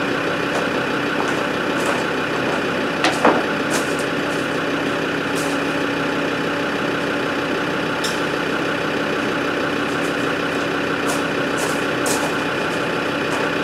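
Land Rover Discovery TD5's five-cylinder turbodiesel engine idling steadily, with a couple of light clicks about three seconds in.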